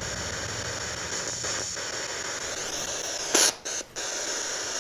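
Steady hiss, the noise floor of a camera's microphone in a quiet room, with a short sharp burst about three and a half seconds in and two brief dropouts just after it.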